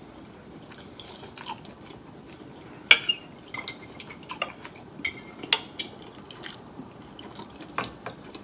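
Irregular clinks of a metal fork and knife against a ceramic dinner plate, the loudest about three seconds in with a brief ring, over soft wet mouth sounds of close-miked chewing.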